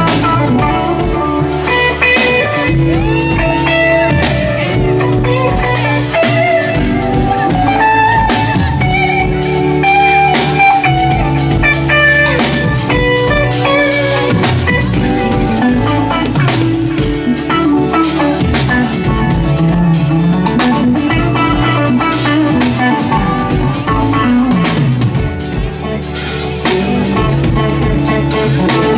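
Live rock band playing, with guitar and a drum kit over a full band sound and a lead line that slides between notes.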